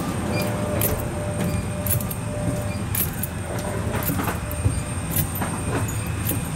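Footsteps walking down an airport jet bridge's carpeted floor, sharp clicks roughly once a second over a steady low rumble.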